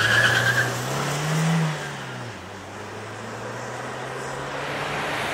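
Car engine revving as the car pulls away, its note rising for about a second and a half, then dropping into a steady run. A high squeal sounds during the first second, and road noise grows toward the end.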